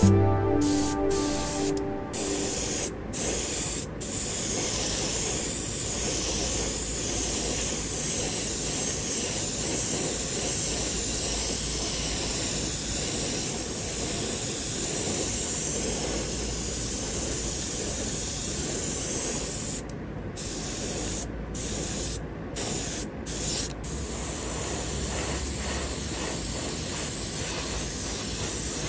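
Gravity-feed airbrush spraying paint in a steady stream of air, cut by a few brief pauses at the start and a run of short on-off bursts about twenty seconds in, as the trigger is let off and pressed again.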